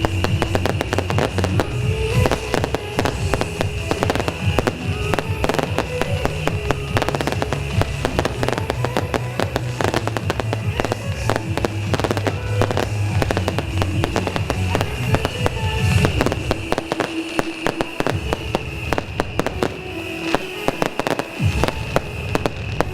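A beehive rocket battery firing: a dense, unbroken volley of sharp cracks and bangs from hundreds of small rockets and firecrackers going off at once. Music with a deep bass plays underneath and drops away about two-thirds of the way through, leaving the crackling.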